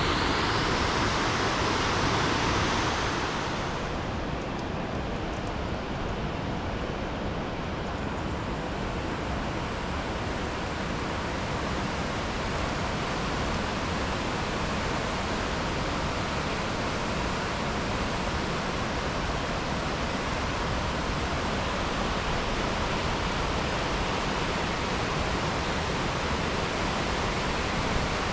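A swollen river in flood rushing steadily: an even, unbroken hiss of fast water. It is brighter for the first few seconds, then settles.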